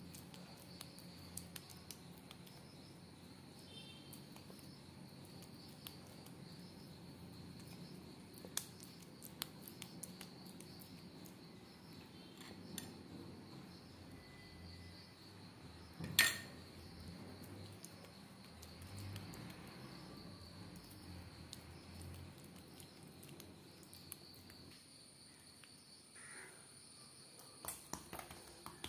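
Soft handling of oiled dough balls on a stone counter: faint scattered taps and light clicks over quiet room tone with a faint steady high whine. A little past halfway comes one sharp clink from the spoon used to drizzle the oil.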